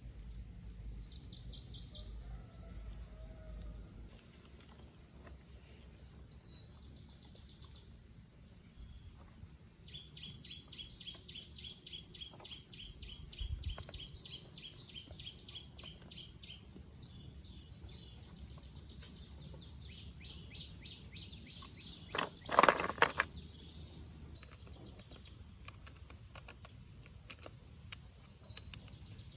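Birds singing in repeated short, rapid trills over a faint steady high whine. About three-quarters of the way through comes a brief loud clatter.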